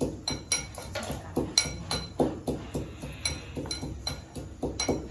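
Cutlery clinking against dishes: a string of short sharp clinks, about two to three a second, each with a faint ring.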